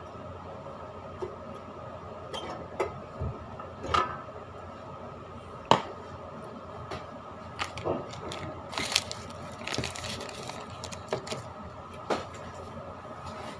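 Kitchen handling noises: scattered clicks and knocks from a plastic food container and spoon, the sharpest about six seconds in, with a brief crinkly rustle of a wrapper around nine seconds in. A steady faint hum runs underneath.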